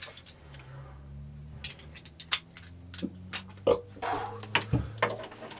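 Metal hand tools clicking and clinking, irregular single clicks, as a socket extension is fitted onto a wrench, over a low steady hum.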